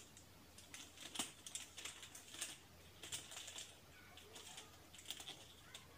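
Faint, scattered light clicks and rustles of hands turning over and handling a large plastic Rayminx twisty puzzle.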